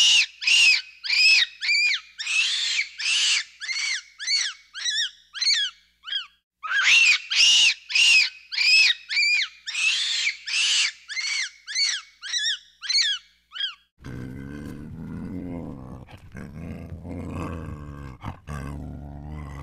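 A monkey gives two long series of high calls, each note rising and then falling in pitch. In each series the notes start about two a second, then come faster and shorter toward the end. About fourteen seconds in, this gives way to a lion's low, rumbling growl.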